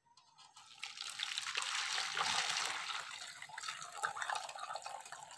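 Dissolved palm-sugar (gula merah) syrup poured from a pot through a wire-mesh strainer into a plastic basin: a steady splashing pour that builds about a second in and cuts off abruptly at the end.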